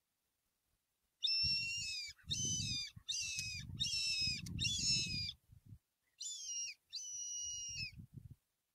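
Hand-blown fox call giving a run of short, high-pitched squeals that fall in pitch, about five in quick succession, then two more after a brief pause. It imitates a rabbit in distress to draw a fox in.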